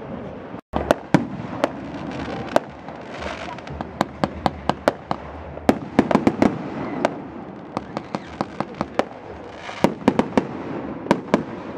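Fireworks display: aerial shells going off in a long series of sharp bangs, some in quick runs of several, with a rushing hiss swelling up twice between them. The sound cuts out for an instant just under a second in.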